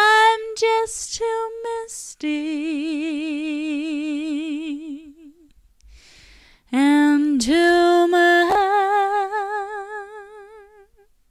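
A woman's unaccompanied voice singing long held notes with wide vibrato, with no words heard. A phrase of short notes leads into a long low note. After a pause, a second phrase rises and ends on a long wavering note that fades out near the end.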